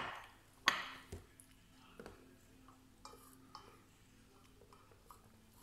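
A ceramic coffee mug set down on a hard table: a sharp clunk with a short ring, a second one under a second in, then faint scattered ticks of eating from a plate by hand.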